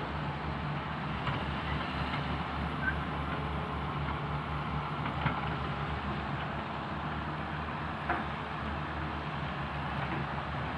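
A Caterpillar excavator's diesel engine running steadily under load, with a few short knocks at irregular intervals.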